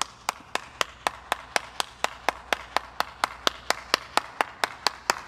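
One person's hands clapping steadily and evenly, about four claps a second, with no cheering or other applause around it.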